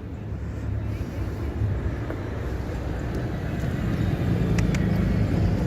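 Town street traffic rumbling, growing steadily louder as a vehicle approaches.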